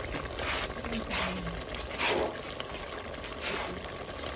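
Thick bitter ball soup simmering in a steel pot, bubbling steadily, with a few louder bubbles breaking now and then.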